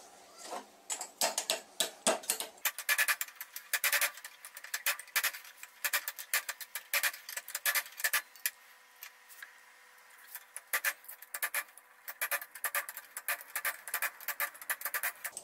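Small hammer tapping a small sheet-steel cone against a bench vise to fold its petals closed, giving quick bursts of sharp metallic clinks with a brief pause about two-thirds of the way in.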